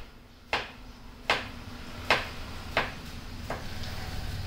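A cat licking its lips: five short, sharp mouth clicks, about one every three-quarters of a second.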